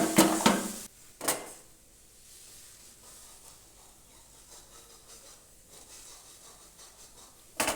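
Brief kitchen handling sounds as tomato sauce goes into a curry pan: a short scrape in the first second and a single knock just after, then near quiet, with another short knock at the very end.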